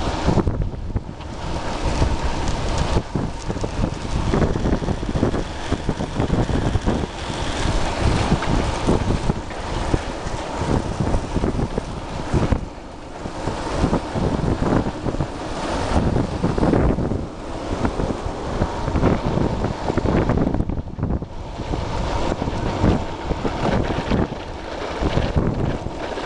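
Wind buffeting the microphone of a camera carried on a moving longboard, over the rough rumble of wheels rolling on asphalt, rising and falling in gusts.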